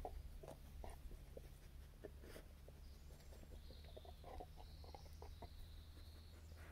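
Faint footfalls of a dog's paws on stony ground: scattered soft ticks and scuffs over a low steady rumble.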